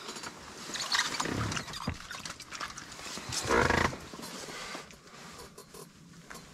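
Handling noises as a bluegill is reeled up through the ice hole and swung into the hand: short rustles and knocks, with the loudest, a half-second burst of the fish flapping, a little past halfway.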